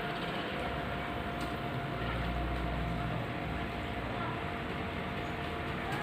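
Steady rush of falling water with the even hum of a small pump, as from a small homemade aquarium waterfall.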